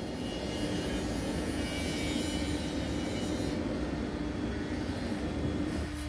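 Steady low drone of distant engine noise, with a constant hum running through it, swelling slightly and easing off again shortly before the end.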